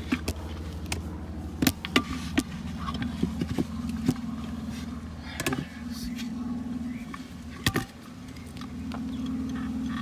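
Several sharp clicks and knocks at uneven intervals from hard plastic filter lid parts being handled and pushed into place, over a steady low hum.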